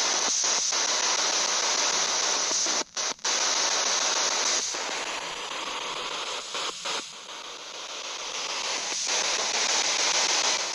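Spirit box sweeping through FM radio frequencies: a steady hiss of radio static, broken by brief dropouts, two of them close together about three seconds in.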